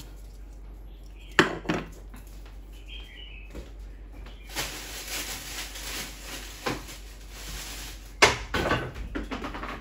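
Steel letter and number punch sets being handled: sharp metal clicks and clinks, a few seconds of rustling and scraping in the middle, then a quick run of small clicks near the end.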